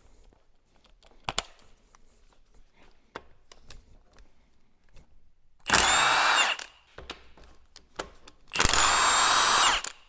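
Cordless impact wrench loosening the bolts of a power steering rack's pinion valve housing. It runs in two bursts of about a second each, some three seconds apart, after a few light clicks as the socket is fitted.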